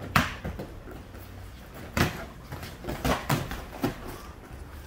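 Padded smacks of boxing gloves landing during sparring: one sharp smack just after the start, then a quick run of about five smacks between two and four seconds in.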